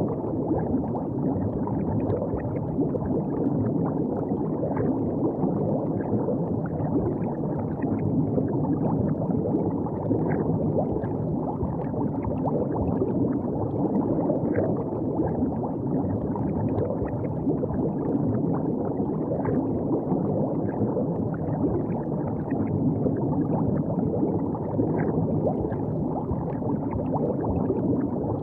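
River water flowing and gurgling steadily, with small plinks and splashes scattered throughout.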